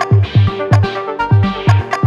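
Electronic background music with a heavy kick-drum beat, held synth notes and hi-hat ticks.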